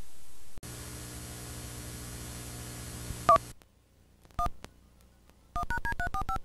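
Hiss of static gives way to a steady buzz that cuts off after about three seconds. Then come touch-tone telephone keypad beeps, each two tones at once: one, another about a second later, and a quick run of about six near the end, dialling a number.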